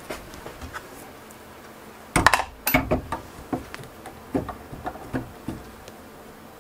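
Hard metallic clinks and knocks as a spindle motor is worked by hand into the clamp mount on a desktop CNC router's Z-axis carriage: a cluster of sharp knocks about two seconds in, then several lighter clicks.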